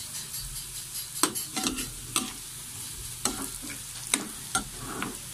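Diced potatoes sizzling as they fry in a pan, stirred with a utensil that scrapes and knocks against the pan several times.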